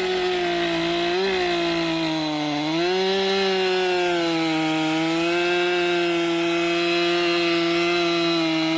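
Chainsaw held at full throttle, cutting steadily through a tree trunk on the felling back cut. Its pitch dips briefly under load a little under three seconds in, then recovers and holds steady.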